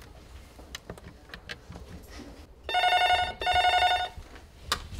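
A Panasonic corded desk telephone's electronic ringer sounding two short rings in quick succession, about halfway through, followed by a sharp click near the end.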